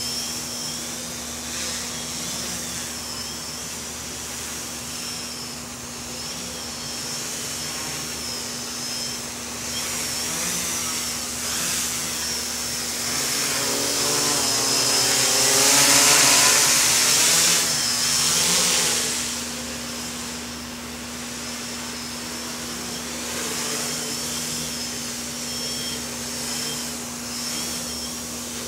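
Quadcopter's brushless motors and 10-inch props buzzing in flight, with a high whine that wavers as the throttle changes. It grows louder about halfway through as the quad comes close, then fades back.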